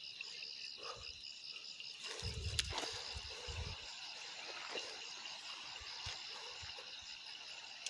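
Steady pulsing chorus of night insects, with a few low thumps of handling about two seconds in.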